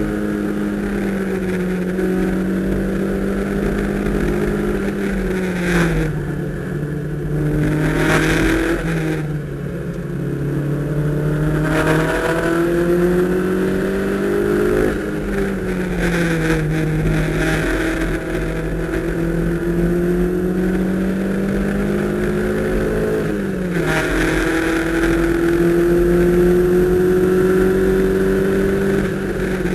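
Toyota MR2 Spyder's 1.8-litre four-cylinder engine at hard throttle, heard from inside the cabin. Its pitch climbs slowly and drops sharply about four times as it changes gear or comes off the throttle.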